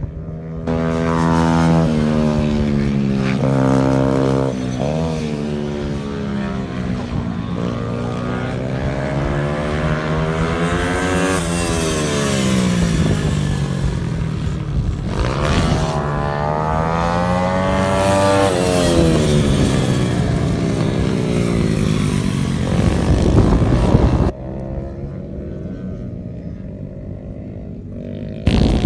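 Small-wheeled race motorcycles (Symoto TenTen pit bikes) lapping a track. The engine note climbs as the riders accelerate through the gears, then falls away as the bikes pass and brake into corners. The sound drops sharply about two thirds of the way through, then comes back loud just before the end.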